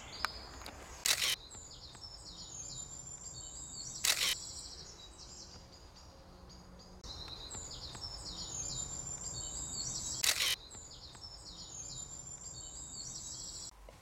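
Songbirds singing in short repeated chirping phrases outdoors, broken by three sharp clicks: about a second in, at about four seconds and near ten seconds.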